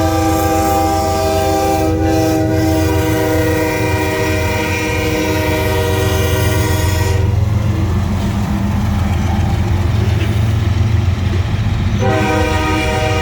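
Locomotive air horn sounding a long, many-toned blast that cuts off about seven seconds in, leaving the low rumble of the train, then sounding again near the end.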